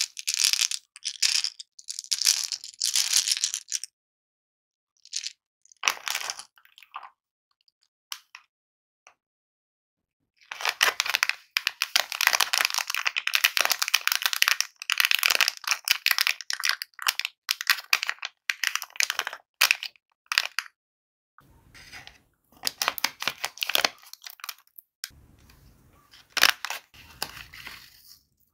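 Hard candy-coated chocolate eggs clattering together in cupped hands, then a long stretch of crinkling as a plastic candy wrapper is handled and opened. Near the end, softer rustling of a paper-and-foil packet as a lollipop is worked in its sour powder.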